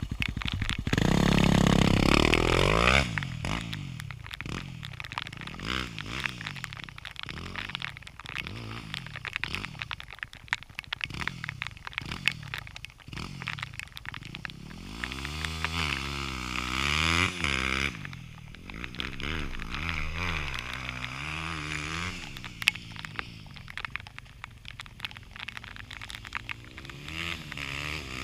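Dirt bike engine revving hard and climbing in pitch as the bike pulls away, then rising and falling again and again, about once a second, as it rides round the dirt field. The engine grows louder again around the middle as it comes nearer.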